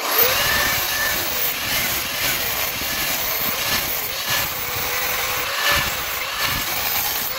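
Angle grinder with a cutting disc cutting through a steel exhaust pipe: a steady high whine over a dense grinding hiss.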